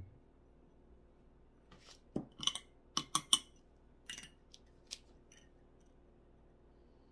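Ceramic or glass teaware being handled and set down: a quick series of light clinks and knocks, loudest about three seconds in, then fading out after about five seconds.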